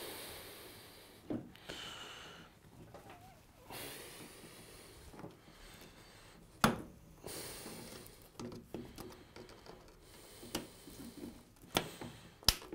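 Rubber hose being worked onto the plastic spigot of a washing machine drain pump, with a spring hose clip squeezed by pliers. Swells of rubbing and scuffing are broken by sharp clicks, the loudest about six and a half seconds in and a few more near the end.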